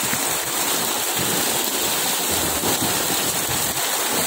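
Dense, steady splashing of a mass of fish thrashing at the water surface, crowded together in a net being drawn tight at harvest.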